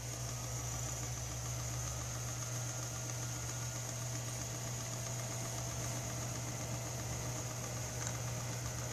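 Steady hum of a small electric motor turning a fishing rod slowly in a rod-wrapping machine, with a faint high whine over it.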